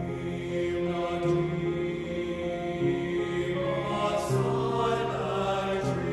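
High school men's chorus singing sustained chords, several voice parts holding each chord for a second or two before moving together to the next.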